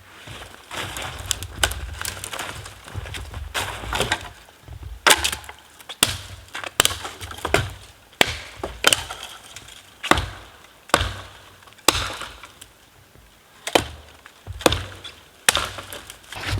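Dry firewood breaking in a series of sharp cracks and splintering, roughly one a second, with a heavy thud under some of them.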